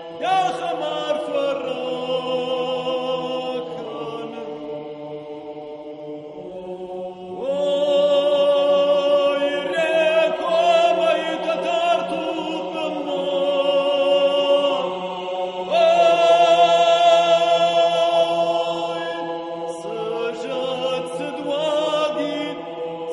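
Background music of wordless choral chanting: long held voices in chords that change every few seconds over a steady low drone.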